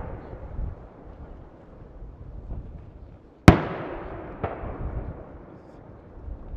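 Aerial firework shells bursting about 450 m away: a loud, sharp report about three and a half seconds in and a smaller one a second later, each trailing off in a long rumbling echo, with low rumbling from other bursts in between.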